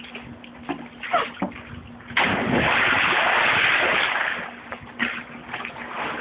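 A person cannonballing into a swimming pool: a sudden big splash about two seconds in, water crashing and sloshing for about two seconds before it dies away.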